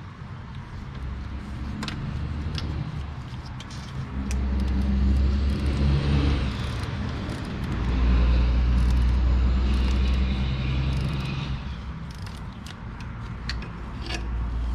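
Light scattered clicks of a hand wrench with a 10 mm socket tightening the nut on a starter motor's signal-wire terminal, over a low rumble that swells twice.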